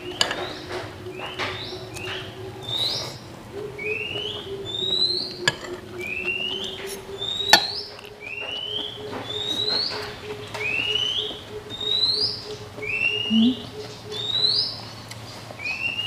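A songbird calling over and over, a short upward-sliding chirp about once a second.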